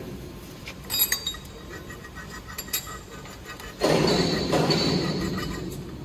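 Steel tooling parts of a spiral tubeformer clinking and knocking together as the forming head and knife are handled, a few sharp clicks about a second in. Past the middle a louder rough noise sets in suddenly and fades over about two seconds.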